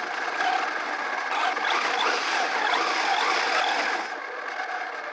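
Electric RC truck drifting on ice: the motor's whine rises and falls with the throttle over the scrabble of the tyres. It eases off briefly about four seconds in.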